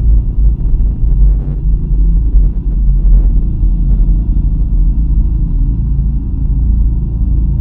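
A loud, steady low rumble, with a few faint knocks at irregular intervals.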